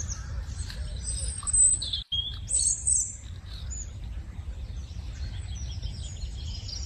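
Small birds chirping: many short, high calls over a steady low rumble, broken by a brief dropout about two seconds in.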